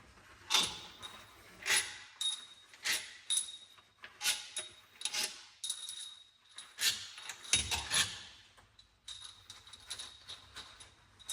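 Metal tools and engine parts being handled during an engine bottom-end teardown: about a dozen short, sharp clinks and knocks at irregular intervals.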